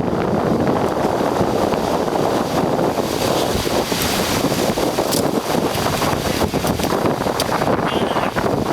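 Strong wind buffeting the microphone over the rush of surf on a rocky shore, with a few brief sharp ticks in the second half.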